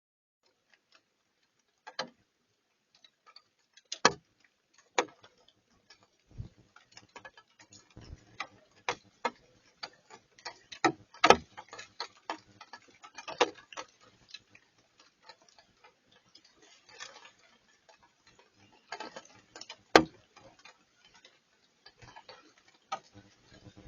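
Raindrops landing as separate, irregular taps rather than a steady hiss. They come a few seconds apart at first and grow more frequent after about six seconds, with a louder tap now and then.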